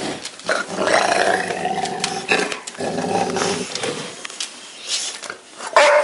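A dog 'talking' in drawn-out growly vocal sounds instead of barking: one about two seconds long, then a second, shorter one. A short loud call comes near the end.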